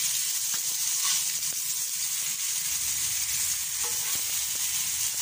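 Mutton chapli kababs sizzling steadily in their fat on a flat tawa griddle, with a few light scrapes as a metal spatula is slid under a kabab to turn it.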